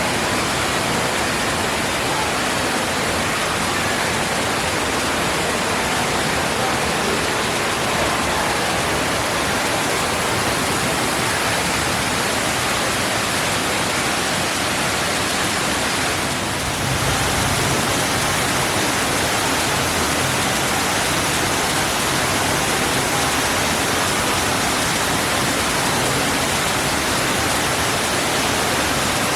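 Steady rushing and splashing of water from a man-made indoor waterfall pouring into its pool.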